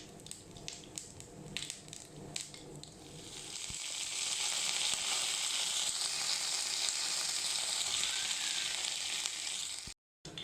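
Mustard seeds and fenugreek crackling in hot coconut oil in a pan during tempering. A few scattered pops give way, about three seconds in, to a steady sizzle that cuts off just before the end.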